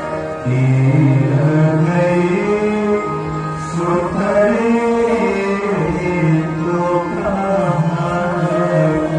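Indian devotional music: a voice singing a slow melody in long held notes over steady instrumental accompaniment.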